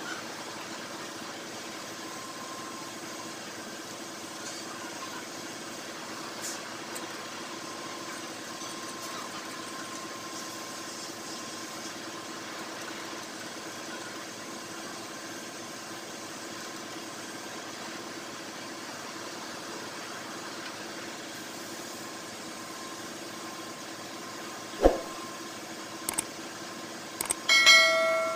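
Steady hiss of a gas brazing torch flame with a faint hum under it. There is a sharp click about 25 seconds in. Near the end come a few quick clicks and a short bell-like chime from a subscribe-button animation.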